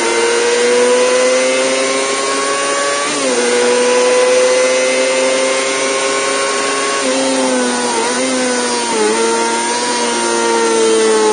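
1990s Kawasaki ZXR250's 250 cc inline-four engine howling at very high revs, around 15,000–16,000 rpm. The pitch drops sharply at a gear change about three seconds in, dips several more times between about seven and nine seconds in, then slowly falls off near the end.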